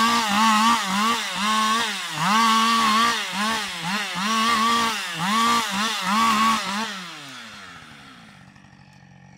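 Husqvarna 560XP two-stroke chainsaw revved up and let back down in quick bursts, more than once a second, as it cuts through spruce branches. About seven seconds in it drops to a steady idle.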